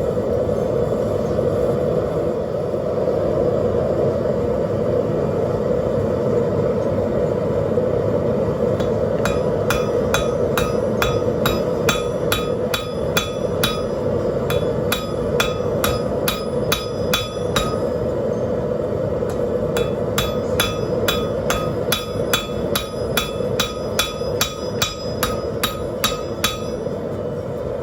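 Hand hammer striking hot rebar on a 175 lb Trenton anvil, each blow ringing, in two quick runs of several strikes a second: the first starts about a third of the way in and the second follows a short pause. Under it a propane forge burner runs with a steady rushing noise.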